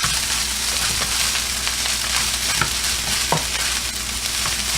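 Fried rice sizzling in a hot pan as it is stirred, with a couple of sharp clicks of the utensil against the pan about two and a half and three seconds in.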